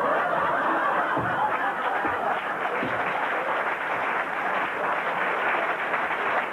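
Theatre audience laughing and applauding, a steady wash of sound. Underneath it, during the first few seconds, come soft slaps of swim fins stepping on the floor, about one a second.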